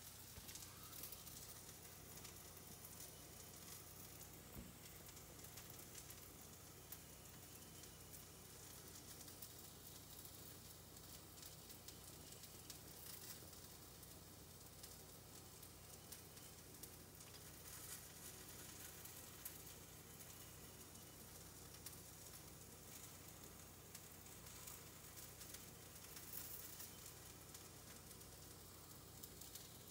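Near silence: a faint steady hiss with light crackling and a low hum, with no distinct sound event.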